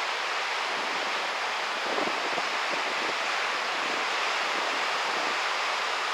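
Steady rushing noise of wind and surf, with no distinct events.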